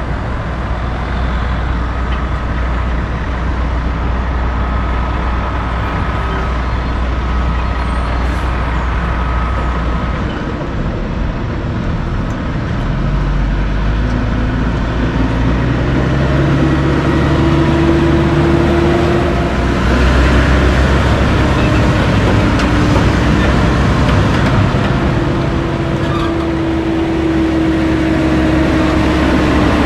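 Diesel dump truck engines: a steady low rumble at first, then from about halfway a Kenworth W900B tandem dump truck approaches close, its diesel engine's pitch rising and falling as it pulls away and grows louder.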